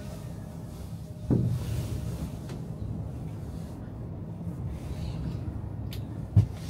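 Steady low rumble inside a moving cable-car gondola as it runs along the cable, with a thump about a second in and a sharp knock near the end.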